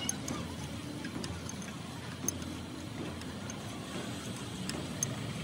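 Hex key clicking in the socket-head bolts of an excavator hydraulic cylinder's gland as they are turned: three light metallic clicks about two and a half seconds apart, over a steady low mechanical hum.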